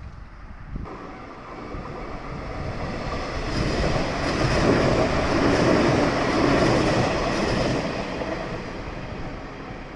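A local train on the Sanyo Main Line passing over the level crossing. Its running noise builds from about a second in, is loudest midway, then fades toward the end. Wind buffets the phone's microphone.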